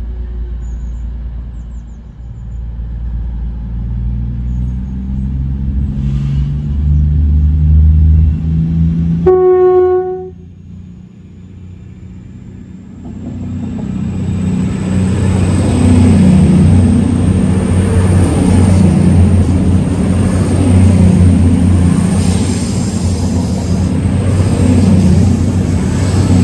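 A diesel train's engine note climbing in steps, then one short horn blast about nine seconds in. From about thirteen seconds a train passes with a heavy rumble of wheels on rail and a thin, rising high-pitched whine.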